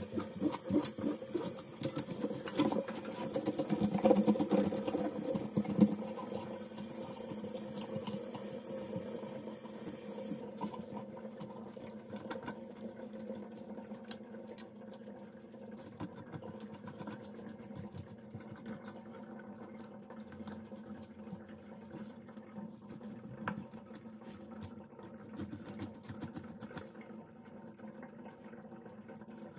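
Knife working on a large snapper, giving a rapid, irregular run of small scrapes and clicks. A tap runs for the first ten seconds or so and then stops abruptly, over a steady low hum.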